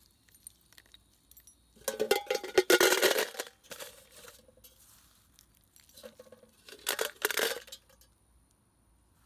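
Handfuls of spent lead bullets, some copper-jacketed, dropped into a metal can, clinking and rattling against the can and each other in two bursts: a longer one about two seconds in and a shorter one about seven seconds in.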